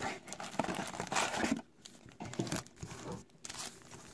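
Cardboard trading-card box being torn open and foil card packs crinkling in the hands, in irregular rustling bursts. They are busiest in the first second and a half, then sparser.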